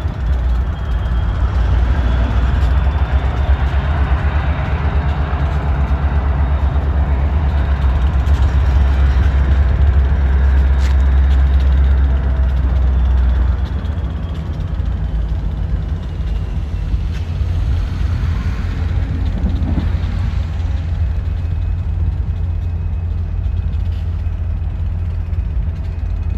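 Heavy diesel engines of slow-moving locomotives and trucks, a steady low rumble that drops noticeably about halfway through.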